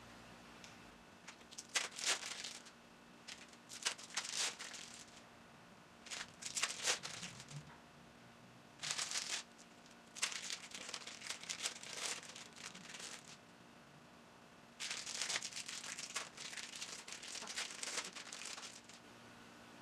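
Thin plastic wrappers of individually wrapped American cheese slices crinkling as they are peeled off by hand, in repeated bursts with short pauses between.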